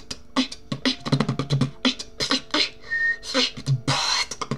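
Vocal beatboxing: a fast run of mouth-made drum sounds, low thumps mixed with sharp hissing hits. About three seconds in comes one brief, steady, high whistled note, and near the end a longer hiss.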